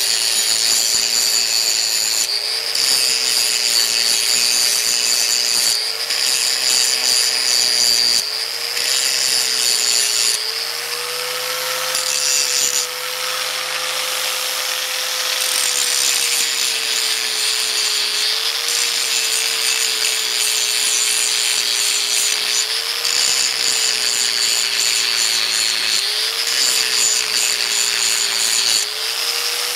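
Angle grinder with an abrasive wheel grinding down an aluminum full roller rocker arm clamped in a vise, to give it clearance so it no longer hits the rocker stud. The motor whines steadily while the high grinding hiss breaks off several times as the wheel is lifted away, and the whine rises a little in pitch whenever the wheel runs free.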